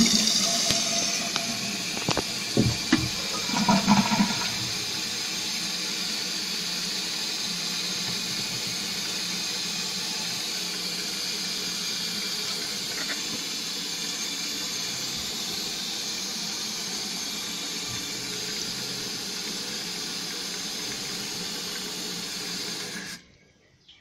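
1995 Mansfield Alto toilet flushing, with a gush and a few knocks in the first seconds, then a steady hiss of water running in as it refills. The hiss cuts off suddenly near the end.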